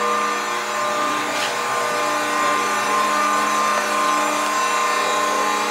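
A Niagara hydraulic shear's electric motor and hydraulic pump running steadily: a constant hum with a steady high whine.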